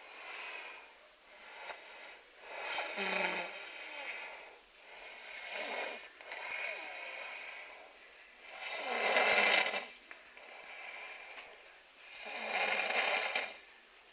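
A person snoring hard: four loud snores, each about a second long and roughly three to four seconds apart, with quieter breathing between them.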